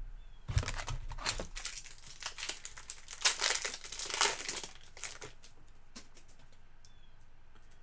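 Trading cards and their packaging crinkling and rustling in the hands: a dense run of small crackles from about half a second in until about five seconds in, busiest around three to four seconds, then quiet.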